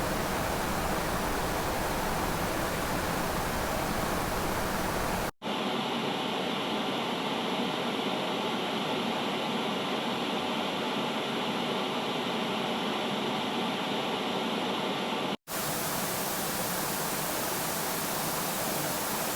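A steady rushing, hiss-like background noise with no clear source, broken by two abrupt cuts about five and fifteen seconds in. Between the cuts the noise is thinner, without its low rumble.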